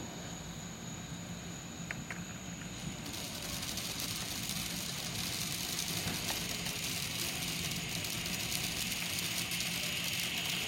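Ground fountain fireworks spraying sparks with a steady hissing rush that grows louder and fuller about three seconds in.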